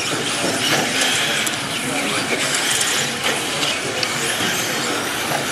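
Electric 1/10-scale RC buggies racing on a clay track: a steady mechanical clatter of gears and chassis with the high whine of electric motors.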